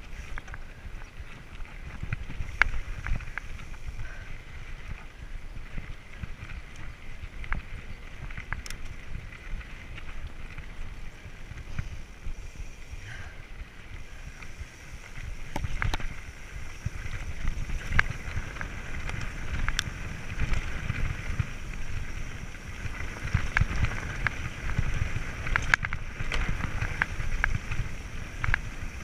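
Mountain bike rolling over a dirt and stone trail: wind buffeting the microphone with the tyre noise, and many sharp clicks and rattles from the bike and loose stones. It gets louder a little past halfway, as the bike picks up speed.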